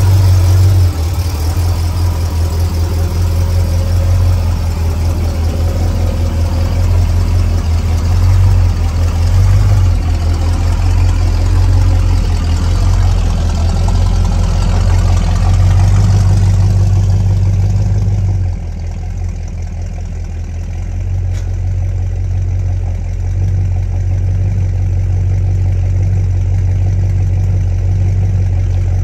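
Truck engine running at a steady idle, heard from underneath the vehicle as a constant low drone. About two-thirds of the way through, the higher hiss over it drops away and the sound gets a little quieter, leaving mostly the low engine hum.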